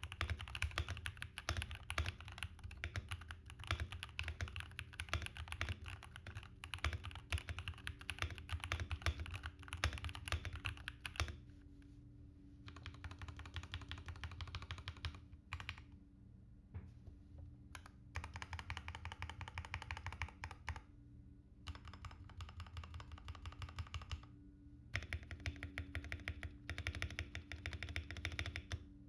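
Royal Kludge RK84 mechanical keyboard being typed on. Rapid, continuous keystrokes for roughly the first eleven seconds, then typing in shorter runs with brief pauses between them.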